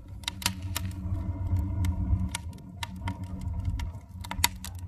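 Wood-fired rocket stove burning: the low, steady rumble of its draft, the characteristic rocket-stove sound, with irregular sharp crackles and pops from the burning sticks in the feed tube.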